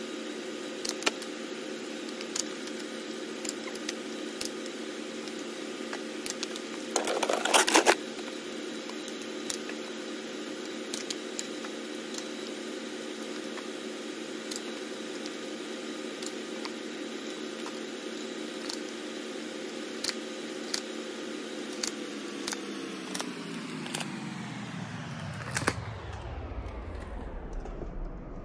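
A steady hum of several tones, which slides down in pitch a few seconds before the end, under scattered light clicks and taps of cardboard shoe boxes being handled and stacked. A short louder rustle comes about seven seconds in.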